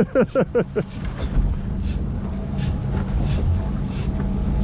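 Fishing boat's engine running with a steady low hum. A man's voice is heard briefly in the first second.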